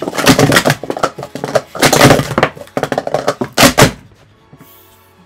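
Plastic Speed Stacks sport-stacking cups rapidly upstacked into pyramids and downstacked on a mat, a dense run of hollow plastic clacks lasting about four seconds, then stopping. The set is badly worn in.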